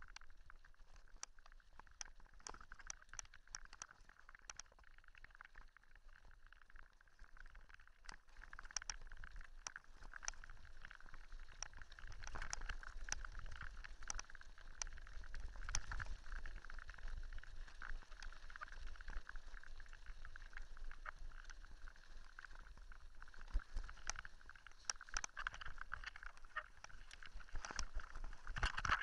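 Mountain bike rolling over a loose gravel dirt track: tyres crunching on stones with many scattered clicks and rattles from the bike, over a low wind rumble that grows louder after about eight seconds.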